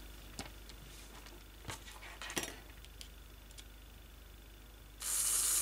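A few faint clicks as a small model-locomotive motor is pressed down into the chassis cradle, then about five seconds in the N gauge motor starts up on test power with a high, steady whirring hiss as it spins freely with its worm gears: it runs after being reseated.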